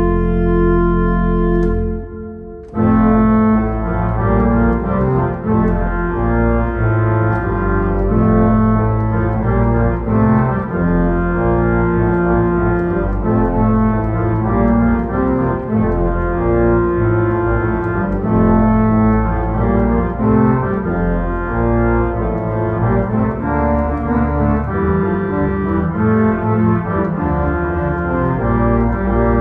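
Church organ playing a theme-and-variations piece. A held chord cuts off about two seconds in, and after a brief pause a busier section begins: moving chords over a low bass line.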